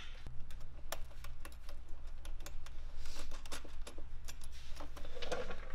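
Irregular small metallic clicks and taps of stainless steel bolts and washers being handled and fitted into the mounting holes under a snowmobile exhaust can, over a steady low hum.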